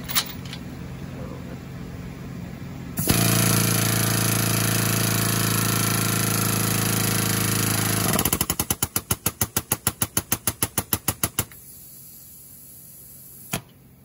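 Air-driven hydraulic pump of a Parker hose crimper running as it works the crimp: a loud steady drone for about five seconds, then rapid pulsing at about six beats a second for a few seconds before it stops. A single sharp click comes near the end.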